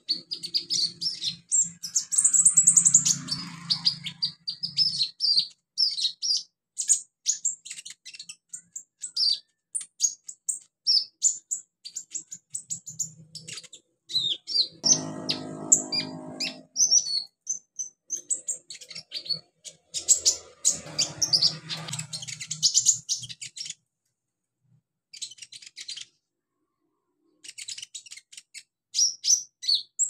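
Male Van Hasselt's sunbird (kolibri ninja) singing: a fast, almost continuous run of very high, thin chirps and twitters, broken by a couple of short pauses near the end.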